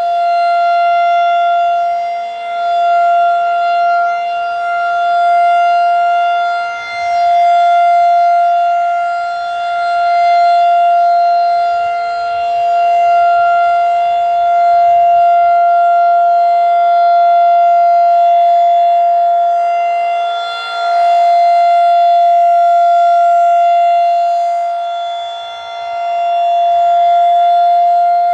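Federal Signal 2001-DC roundback electromechanical warning siren sounding a steady full-alert tone. Its loudness swells and fades every few seconds as the rotating horn sweeps past.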